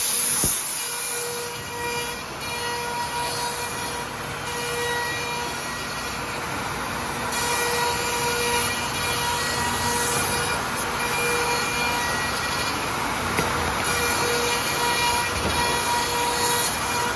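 Two-spindle CNC router cutting zigzag stair stringers from sheet board: a steady rushing cutting noise with a whining tone that keeps coming and going as the heads travel along the cut.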